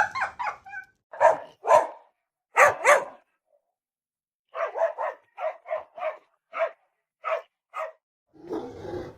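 A dog barking: short, sharp barks in two runs, with a silent pause of about a second and a half between them, the second run faster.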